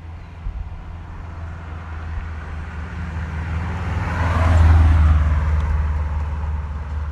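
A 2005 Subaru Impreza WRX STI with its flat-four boxer engine driving past: it approaches, is loudest about four to five seconds in as it passes, then fades as it drives away.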